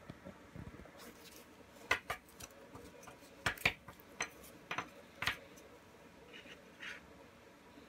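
Chopsticks knocking against an instant udon cup while working the noodles: about eight sharp clicks and taps over a few seconds, then a couple of softer sounds near the end.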